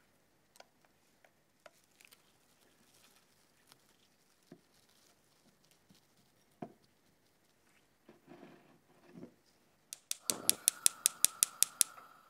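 Scattered light kitchen clicks and taps, then about two seconds of rapid, evenly spaced sharp clicks, about six a second, over a steady high tone near the end.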